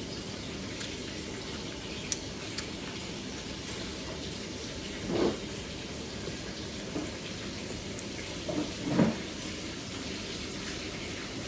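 Steady hiss with soft eating sounds: a few faint clicks and two short bursts of chewing or swallowing, about five and nine seconds in.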